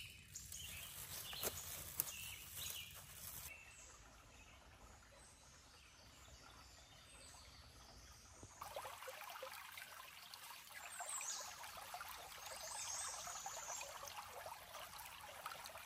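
Quiet woodland ambience with faint bird calls. About nine seconds in, a shallow creek starts running over stones, a steady watery noise with a few short high bird chirps over it.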